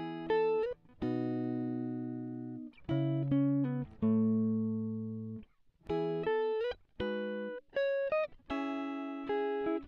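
Background music: a plucked guitar playing short phrases of chords and quick runs of notes, each chord ringing out and fading before the next phrase.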